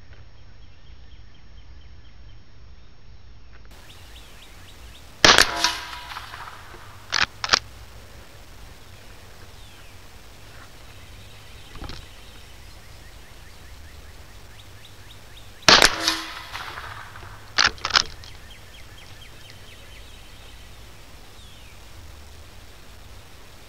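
Two gunshots about ten seconds apart, each followed about two seconds later by a pair of short, sharp clicks.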